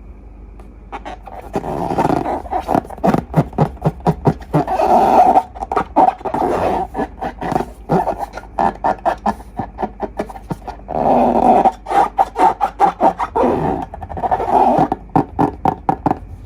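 Slime and long balloons being squeezed and worked by hand: a rapid run of short wet clicks and crackles with a few longer squeaky stretches, stopping about a second before the end.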